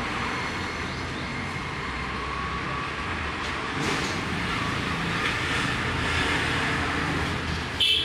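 Steady background noise of road traffic, with a single sharp click near the end.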